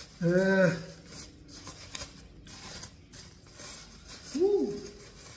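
Small clicks and rustles of nail clippers snipping and working at parcel packaging, with two short wordless hums of effort, one just after the start and one near the end; the hums are the loudest sounds.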